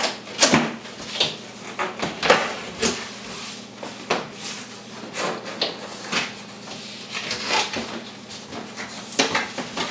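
Cardboard box being opened by hand: flaps pulled open and cardboard rubbing and sliding, with a string of irregular knocks and scrapes.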